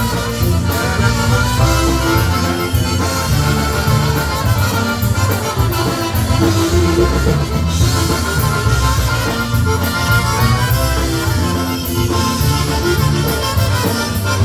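Chicago-style polka band playing an instrumental passage, with a squeezebox lead over a steady bass line.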